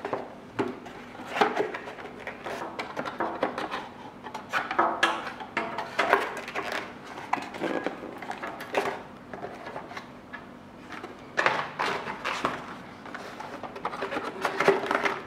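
Irregular knocks, clicks and rubbing as the parts of a TBS Caipirinha 2 flying wing are handled, its nose pod being fitted onto the wing.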